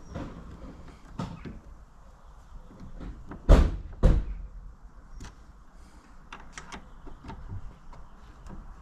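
Clicks and knocks of hands and tools working on a metal bonnet hinge, as its grub screw is done back up. Two louder knocks come about half a second apart near the middle.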